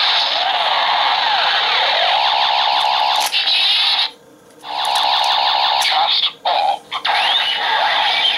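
Kabutick Zecter toy playing its electronic sound effects through its small speaker: a dense jumble of sweeping tones, cut off for a moment about four seconds in and twice more briefly later. The toy's batteries are low, which garbles its sounds.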